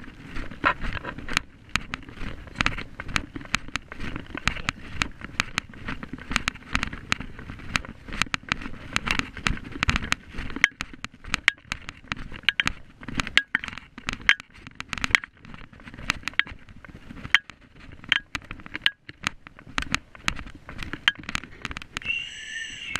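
Dense, irregular rattling and scraping clicks as the camera's mount is jostled while it is moved over paving, with a short high pitched sound just before the end.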